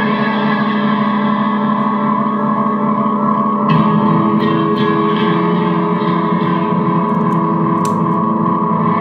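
Guitar ringing in long sustained chords, with a new chord struck about four seconds in and a few lighter picked notes after it.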